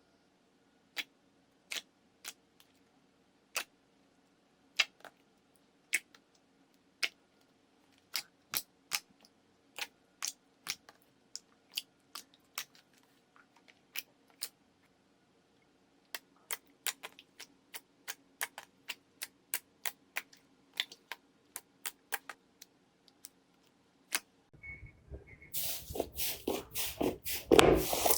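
Slime being handled, giving sharp, separate clicks and small pops, at first about one a second and then coming faster, over a faint steady hum. Near the end a loud, dense crackly crunching starts.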